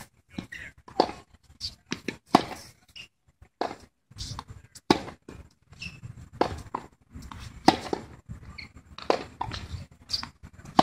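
Tennis rally on a hard court: racquets hitting the ball and the ball bouncing, a sharp crack about every second, with fainter taps between.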